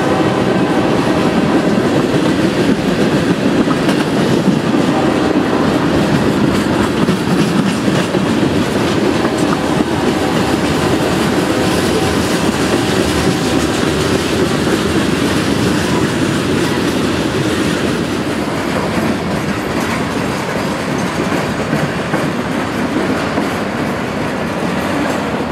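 Freight train cars (tank cars, covered hoppers and boxcars) rolling past close by: a steady, loud rumble with the clickety-clack of wheels over rail joints.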